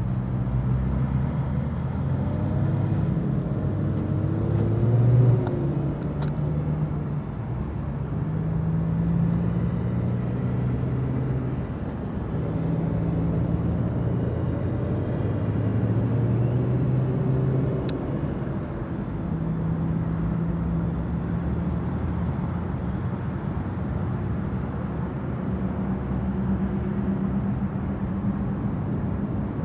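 A motor vehicle engine running steadily, a low hum whose pitch lines shift every few seconds, with two faint clicks.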